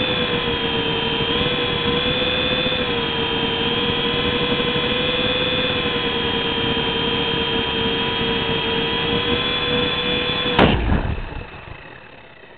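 RC helicopter's motor and rotor whining steadily, the pitch wavering a little as it flies. About ten and a half seconds in there is a sharp thump as it comes down on the carpet, and the whine falls away as the rotor winds down.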